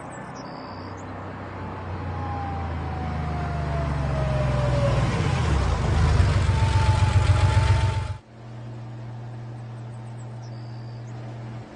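A vehicle engine running, with gliding pitch, growing louder and rougher before cutting off abruptly about eight seconds in. A steady low hum follows.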